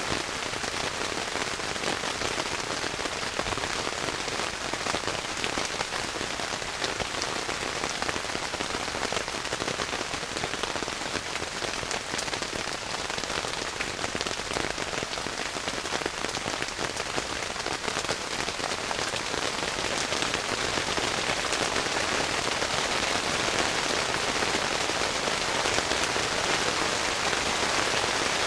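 Heavy rain falling steadily, a dense hiss full of drop ticks, growing a little louder in the second half.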